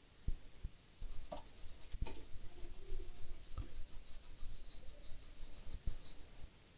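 Scrubbing muddy flux residue off an iPhone logic board with alcohol: quick, repeated scratchy rubbing strokes that start about a second in, with a few light knocks.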